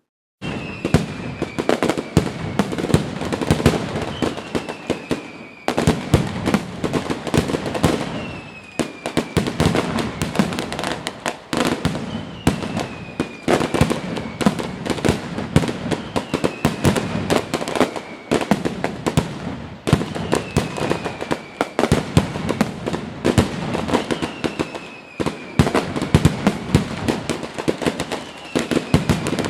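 Fireworks going off in a dense, continuous run of sharp pops and crackles, with a short falling whistle every three to four seconds.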